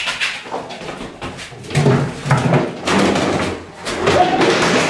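A string of knocks and bangs, a scuffle in a small room while a palm civet is being chased off the wall.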